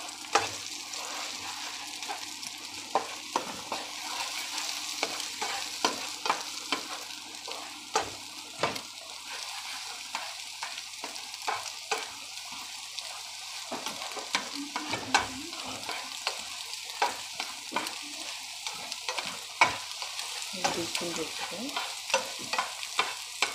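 Beaten eggs sizzling in hot oil in a frying pan while a spatula scrapes and taps against the pan at irregular intervals, stirring and breaking the half-cooked egg into scrambled pieces.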